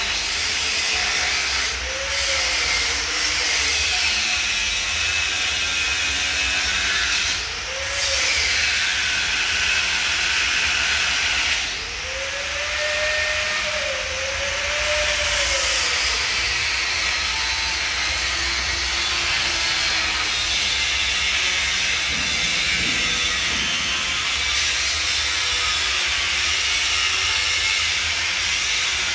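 Angle grinder grinding steel, a steady harsh hiss. The motor's pitch sags and recovers a few times as the disc is pressed into the metal and eased off it.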